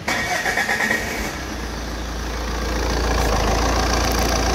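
Saab 9-3 engine cranked by the starter and catching, then settling into a steady idle.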